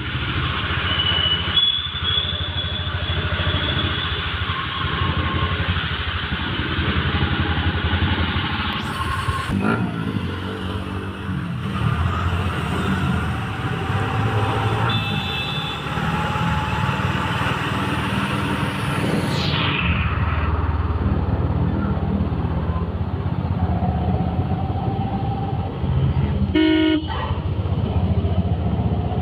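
Busy street traffic, with motorbikes and cars running past and horns tooting now and then, one about halfway through and another near the end.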